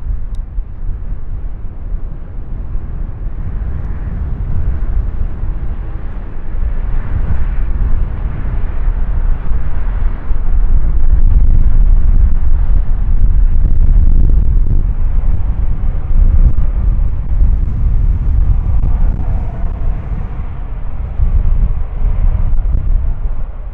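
Wide-body jet airliner's engines passing close by as a deep, steady rumble. It grows louder about ten seconds in, peaks for a few seconds, then slowly eases off.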